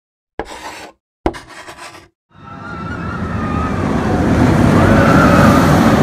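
Intro sound effects: two sharp hits, each dying away within about half a second, then a rushing rumble that swells steadily from about two seconds in.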